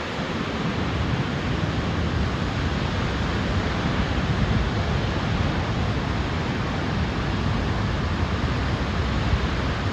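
Water from the brim-full Midmar Dam pouring over its concrete spillway wall and crashing down the face: a steady rushing roar with a strong low rumble, unchanging throughout.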